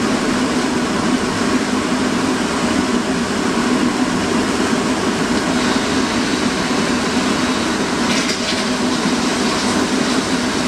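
Homemade waste-oil burner, an old fire extinguisher bottle with a blower feeding air, running at a steady burn: a continuous rush of flame over a steady hum from the air blower.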